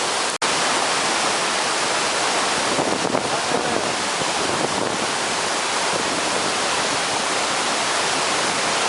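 Waterfall rushing steadily, a dense, even roar of falling water. It cuts out for an instant about half a second in, then carries on unchanged.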